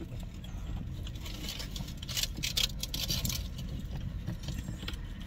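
Eating and food handling: a few short clicks and crinkles, bunched together about a second and a half to three seconds in, over a steady low rumble.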